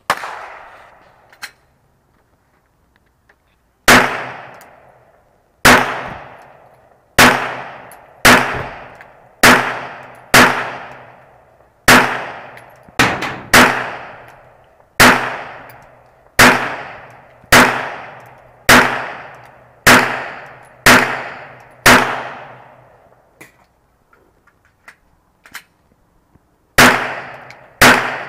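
Glock 20 pistol firing 10mm rounds in a steady string of single shots, about one a second, each crack trailing off in a long echo. Near the end the shots stop for about three seconds, leaving only faint clicks during a reload, and then the firing starts again.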